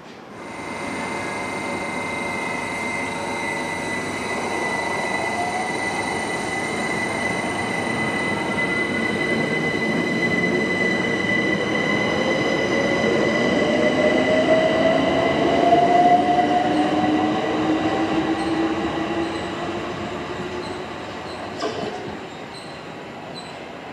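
London Overground Class 378 electric train pulling out of the station: traction motors whining and climbing in pitch as it accelerates, over wheel-and-rail running noise and a steady high-pitched tone. It grows loudest about two-thirds of the way in, then fades.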